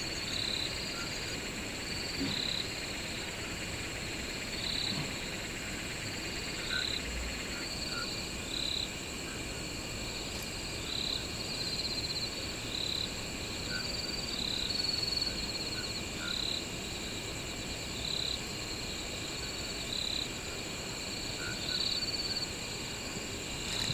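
Night-time chorus of crickets and other insects: steady high trills, with a short call repeating about once a second.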